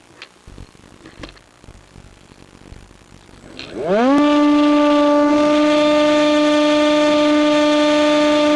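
Electric motor and propeller of a Nitroplanes Hawk Sky RC plane spooling up for takeoff: after a few faint clicks, a whine rises quickly in pitch a little under four seconds in, then holds as a loud, steady tone at full throttle.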